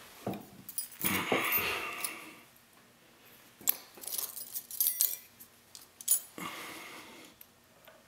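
Small metal lock-picking tools being handled, clinking and rattling with some rustling. A burst of rattle comes in the first couple of seconds, then several sharp clicks, and a softer rustle near the end.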